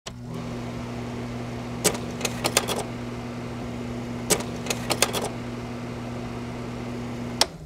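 A steady low hum with sharp clicks in two quick clusters, about two and about four to five seconds in, and a last click as the hum cuts off near the end.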